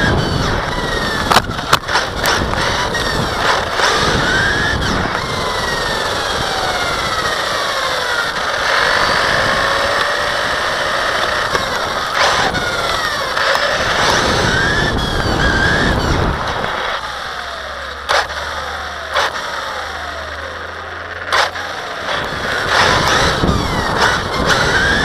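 Team Associated RC8.2e electric 1/8-scale buggy driving, its motor whining up and down in pitch with the throttle over tyre noise on loose asphalt, with sharp knocks from bumps. It goes quieter for a few seconds past the middle, then picks up again.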